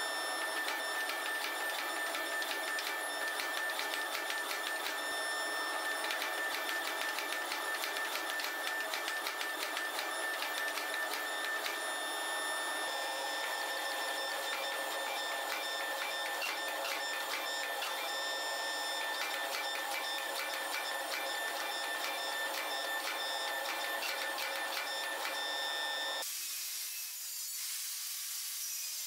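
Hydraulic forging press running as it squeezes a glowing canister billet at welding heat: a steady machine whine with a fast rattle. About 26 seconds in it gives way to a quieter high hiss.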